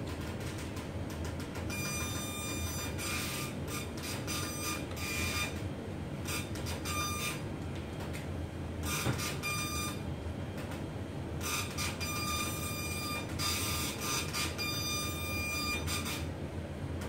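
Electric baby swing cradle running, its drive mechanism giving a steady hum. About two seconds in, as it goes to its highest swing level, a high squeak starts and comes back every second or so, in step with the swings.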